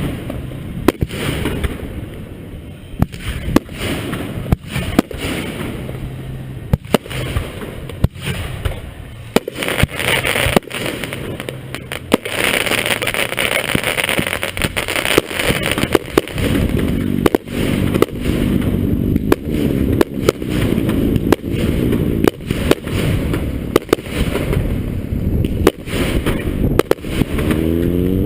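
Fireworks display: a rapid, irregular series of sharp bangs and booms from aerial shells, thickening into a dense stretch of crackle about twelve seconds in.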